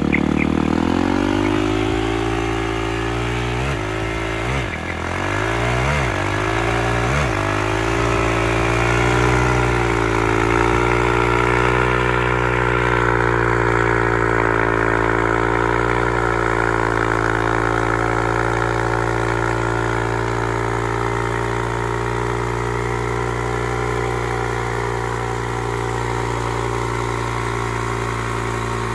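Yamaha YZ450F dirt bike's single-cylinder four-stroke engine revving in four quick blips a few seconds in. After that it is held at steady high revs while the worn-out rear tyre spins on concrete in a smoky burnout.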